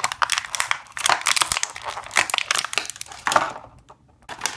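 Clear plastic blister packaging crinkling and crackling as it is handled and pried open, dense crackles for about three and a half seconds, then a short lull near the end.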